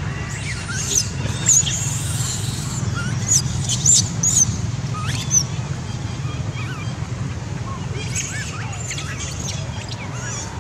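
Many short, high-pitched animal chirps and squeaks, thickest in the first half and sparser later, over a steady low hum.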